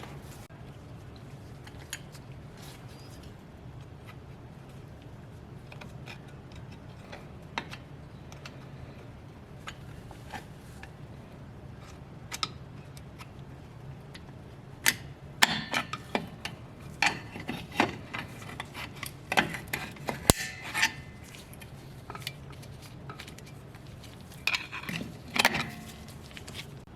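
Metal drum-brake parts, shoes and return springs, clinking and tapping as the brake is reassembled: a quick cluster of sharp clinks about halfway through and a few more near the end, over a steady low hum.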